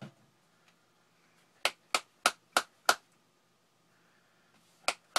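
A can of Grizzly Mint dipping tobacco being packed: five sharp taps in quick succession, about three a second, then two more taps near the end.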